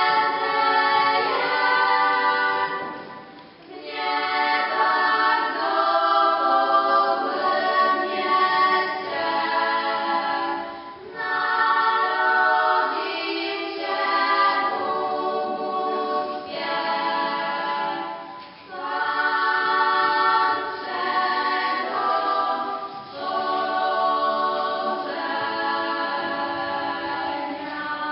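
Small group of girls singing a cappella, in sung phrases with short breaks between them.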